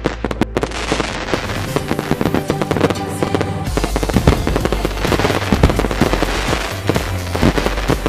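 Fireworks bursting and crackling in dense, rapid succession over electronic dance music with a steady bass line.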